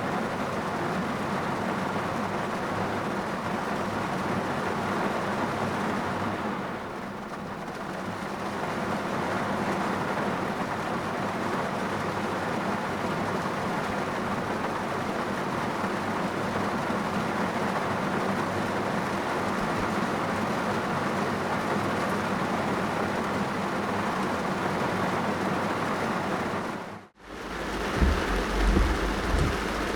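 Steady rain drumming on a car's roof and windshield, heard from inside the car. Near the end the sound cuts out abruptly for a moment, then returns with a few heavy low thumps.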